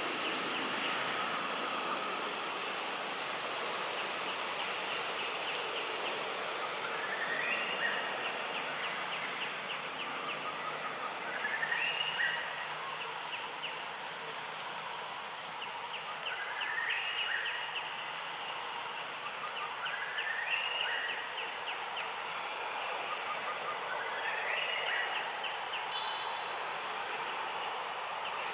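Forest ambience: a steady insect drone with a constant high buzz. A short rising call repeats about every four to five seconds over it.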